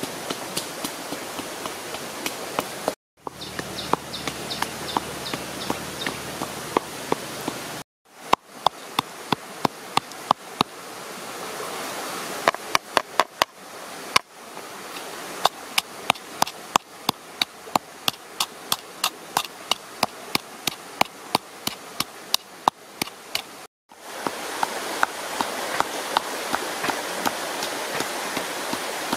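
Pestle pounding coarse salt and peppercorns in a coconut-shell bowl, sharp regular strikes about two to three a second, over a steady rushing hiss.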